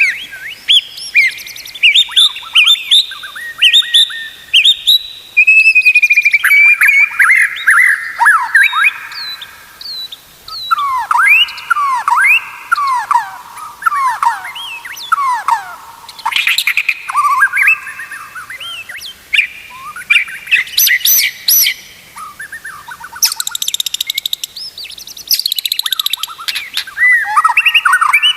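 White-rumped shama (murai batu) singing a long, varied song of loud whistled phrases, sweeping up and down in pitch, mixed with bursts of very high, fast trills around the middle and toward the end.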